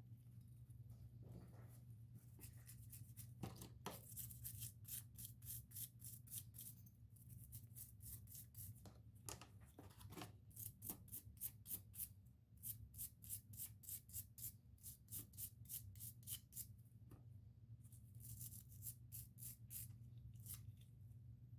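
Faint runs of quick scraping strokes on steel, as of rust being scrubbed or sanded by hand off a vintage Starrett caliper, over a steady low hum.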